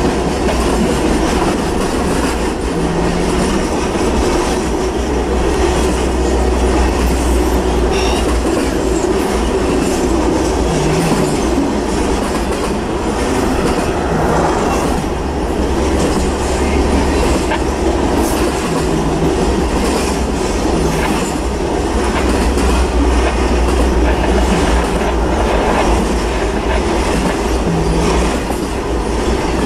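Cars of a Norfolk Southern intermodal freight train, truck trailers and containers on flatcars, rolling past close by: a steady, loud rumble of steel wheels on rail with clicking over the rail joints.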